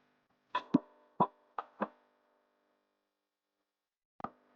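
Five sharp knocks of hard objects in quick succession, then one more near the end, each with a short ringing tail, as small hard parts or tools are handled during a remote-control car repair.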